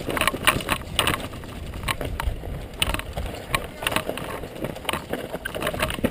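Downhill mountain bike clattering and rattling over a rough, rocky dirt trail at speed: a fast, irregular run of sharp knocks and rattles over a constant low rumble.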